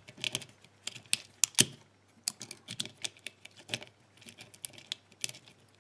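A lock pick raking and wiggling in the keyway of a TSA007 suitcase wafer lock: irregular light metallic clicks and scrapes as the wafers are jiggled.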